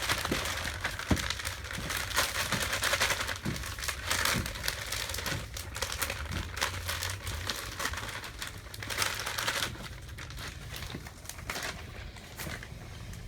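Perch fillets being shaken in a bag of seasoned flour: a continuous rustle and crinkle of plastic that eases off after about ten seconds.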